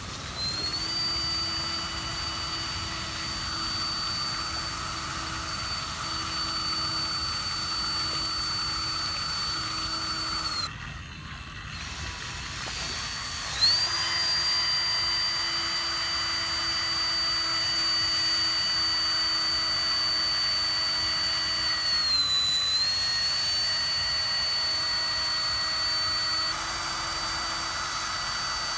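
Small RC water-jet pump driven by a 2212 brushless motor on a 3S battery, held in water and running with a steady high-pitched whine over the rush of the water jet spraying out. The whine cuts off about ten seconds in. About three seconds later it spins back up with a short sharp burst and runs on, with a brief dip in pitch a little after twenty seconds.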